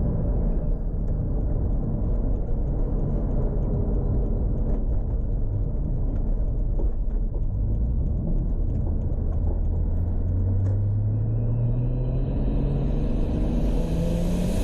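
Toyota Supra MK4's turbocharged 2JZ straight-six rumbling low in the revs while cruising, then its pitch rising slowly over the second half as the car gently accelerates. A hiss builds in near the end.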